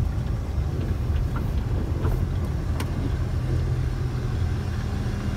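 Goods truck's diesel engine running steadily on the move, heard from inside the cab as a low drone.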